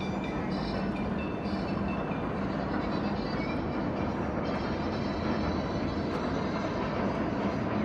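Roller coaster machinery running: a steady, unbroken rumble and rattle of steel on steel.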